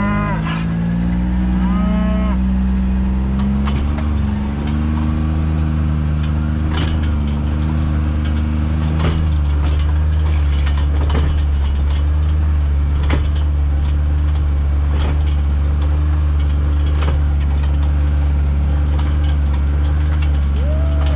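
A utility vehicle's engine running steadily, its pitch wavering for the first several seconds and then holding, while cattle moo a few times: near the start, about two seconds in and at the very end. Scattered short clicks and knocks sound over it.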